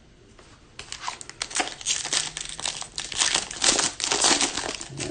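Foil wrapper of a Topps Pro Debut trading-card pack being crinkled and torn open, a dense crackle of sharp clicks starting about a second in.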